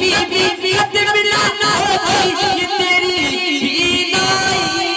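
A man singing a naat into a microphone through a PA system, with long, wavering melodic phrases.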